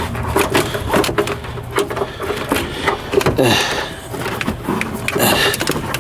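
A car's heat shield panel being worked into place by hand: irregular knocks, clicks and scraping as the stiff panel is pushed and fitted against the floor.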